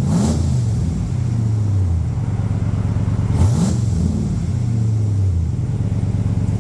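Ram Power Wagon's 392 Hemi V8 idling through a dual exhaust being auditioned with different mufflers, blipped twice: once at the start and again about three and a half seconds in, each rev rising and then falling back to idle.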